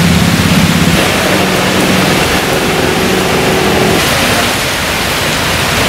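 Heavy rain pouring down onto a road, a loud, even hiss. A vehicle engine hums under it and fades out about four seconds in.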